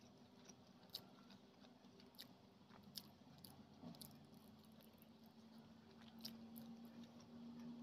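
Faint chewing and wet mouth clicks of someone eating rice and egg curry by hand, over a low steady hum.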